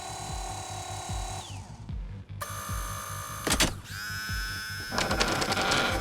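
Tense film score with a regular low pulse, laid under electronic whining and whirring from a remotely operated bomb-disposal robot, its pitch shifting and bending as it moves, with a few sharp clicks about three and a half seconds in.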